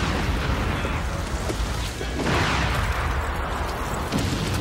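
Battlefield sound effects of artillery shells exploding over a steady low rumble, with a large blast about two seconds in.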